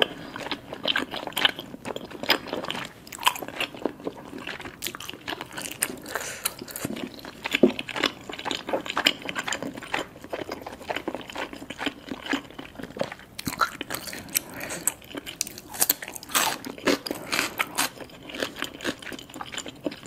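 Close-miked eating sounds: chewing and biting of spicy cheese ramen noodles and chewy rice cakes, with crisp crunching bites of raw cucumber in the second half.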